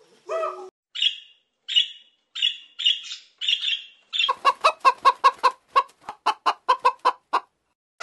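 Red lory calling: a string of short shrill squawks, then a fast run of harsh chattering notes at about six a second, with a brief lower call at the very start.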